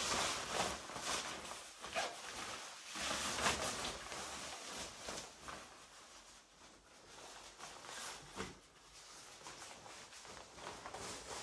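Rustling and crinkling of raincoats and rain gear being put on and adjusted, irregular scrapes and crackles that grow quieter toward the end.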